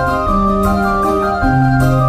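Background music: sustained organ chords over a bass note that changes pitch twice.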